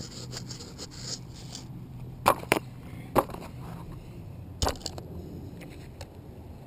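Handling knocks picked up through a GoPro mounted on a quadcopter as the drone is set down on concrete: a few sharp clicks and bumps, two close together about two seconds in and more around three and four and a half seconds, over a low steady background.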